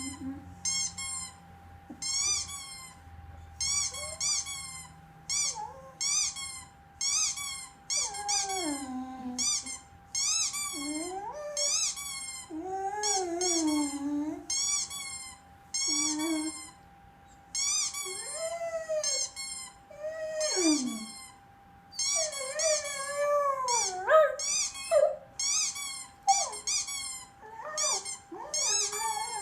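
Runs of short, high-pitched squeaks repeated over and over, with a dog howling and whining in reaction from about a third of the way in, its wavering calls rising and falling between the squeaks.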